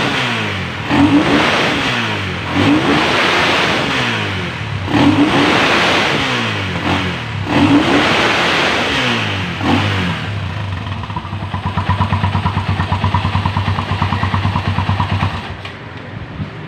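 A 400 cc motorcycle engine revved in five sharp blips of the throttle, each falling back toward idle. From about ten seconds in it settles to a steady, throbbing idle that drops in level near the end.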